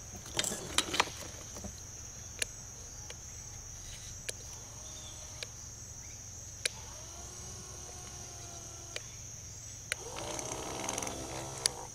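Sharp clicks about half a second in, then an old Phantom Bantam Model M2 electric trolling motor spinning its propeller in the air, a faint hum from about seven seconds in that grows louder near the end. Crickets chirring steadily throughout.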